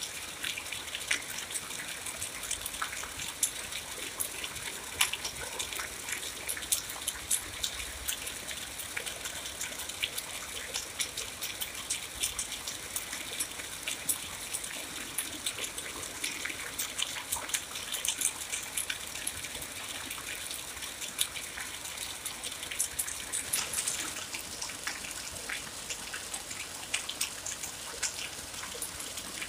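Steady rain falling: a constant hiss with many sharp, irregular drop splashes on top.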